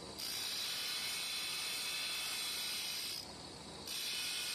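Abrasive cut-off wheel grinding a groove into a metal vise jaw: a high, hissing grind that runs about three seconds, breaks off, then comes back briefly near the end. Under it runs the quieter steady hiss of the spinning wheel.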